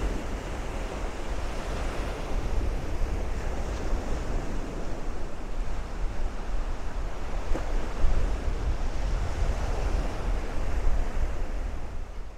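Gulf surf washing onto the beach in strong wind, with gusts rumbling on the microphone's wind screen. The sound fades out near the end.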